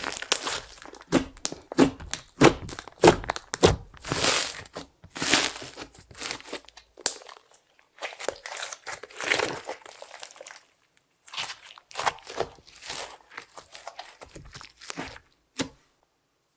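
Hands kneading and stretching clear slime with makeup and glitter mixed in, making a run of irregular short sticky squishes and pops that stop about a second before the end.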